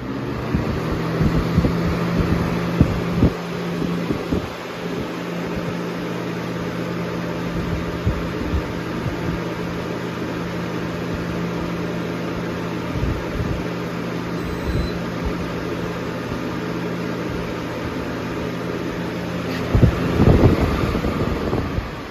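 Lasko 3780 box fan running on its high setting: a steady rush of air over a low motor hum, with irregular low thumps from air striking the microphone.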